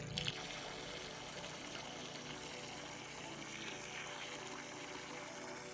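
Water running steadily from a hose into a wheelbarrow of dry cement mix, wetting it for mixing concrete: an even, continuous hiss.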